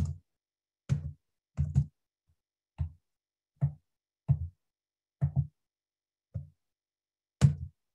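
About ten short, dull knocks from someone tapping at a computer, coming every half second to a second and each cut off sharply. They are clicks made while trying to advance a slide in a shared slideshow.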